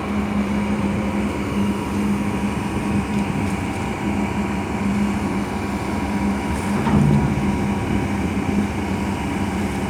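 Steady low engine drone with a constant hum over a noisy wash, as of a ferry's diesel engines running. A brief louder sound about seven seconds in.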